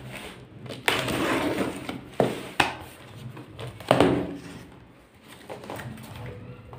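Cardboard shipping box being cut and torn open: a series of sharp rips and scrapes of packing tape and cardboard flaps, with the loudest rip about four seconds in.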